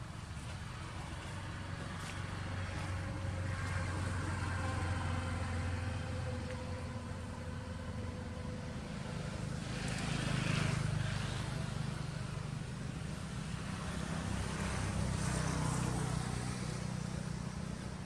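Low, steady rumble of motor vehicles, swelling louder and fading about three times.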